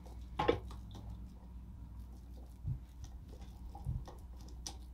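Quiet kitchen handling: a few faint taps and soft knocks over a low steady hum, with a sharper tap about half a second in.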